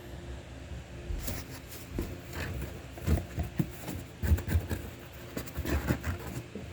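Two small pets scuffling as they play: irregular scratching, rustling and soft knocks, thickest in the middle.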